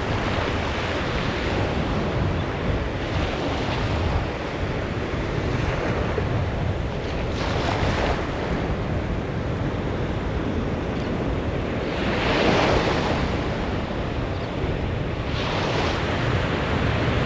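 Surf washing onto a beach, with louder waves breaking a few times, and wind buffeting the microphone.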